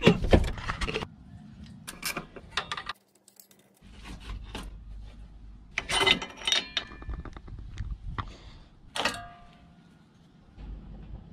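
Metallic clicks, clanks and jingles from hand tools and rear brake parts of a Mazda MX-5 being handled, with several sharp knocks and short ringing clinks of metal.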